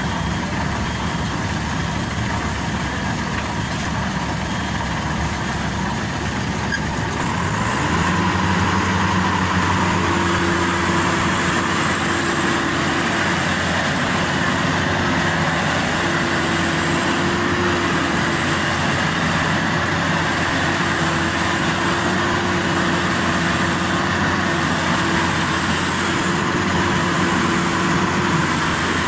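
Maxxi Bimo Evo Xtreme rice combine harvester's engine running steadily, then speeding up and getting louder about eight seconds in as the machine goes back to work. From there on a steady whine from its machinery runs under the engine.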